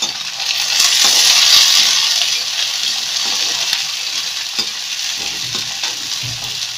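Chopped onions sizzling in hot oil in a pan while they are stirred. The sizzle swells about a second in and then settles to a steady hiss, with scattered short scrapes and knocks of the spatula through it.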